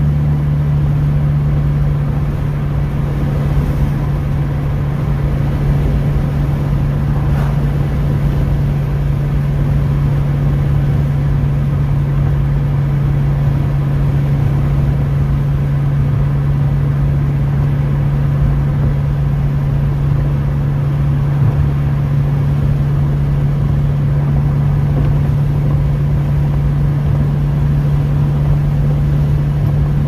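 Engine and tyre noise of a car cruising at steady speed, heard from inside the cabin: a constant low hum over an even road rush.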